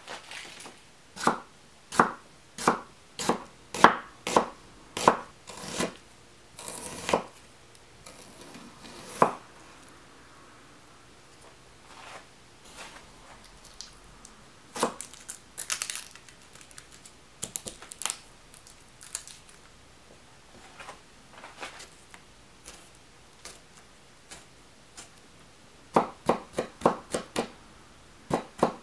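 Kitchen knife cutting on a wooden chopping board: sharp knocks in uneven runs with pauses between, then a quick, even run of chops near the end as garlic is minced.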